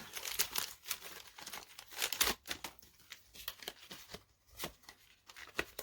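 Foil wrapper of a Pokémon card booster pack crinkling and tearing in the hands in short, irregular rustles, loudest about two seconds in, as the pack is opened and the cards are pulled out.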